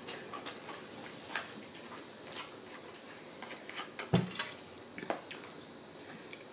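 A spoon scraping and clicking against a frozen-meal shepherd's pie container: a run of light taps and scrapes, with a louder knock about four seconds in.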